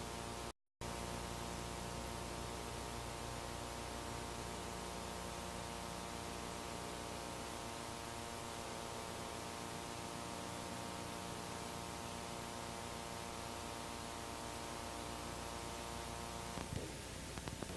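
Steady hiss with an electrical mains hum, broken by a brief total dropout about half a second in. Near the end the hum stops, leaving hiss with a few faint clicks and rustles.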